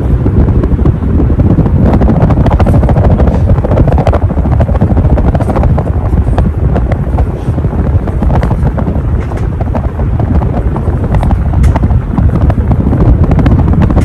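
Casablanca Nouvelle ceiling fan running fast, its blade wash buffeting the microphone in a loud, steady rush of wind noise.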